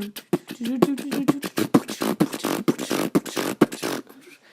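A person beatboxing: rapid percussive mouth clicks and pops mixed with short hummed vocal notes, stopping about four seconds in.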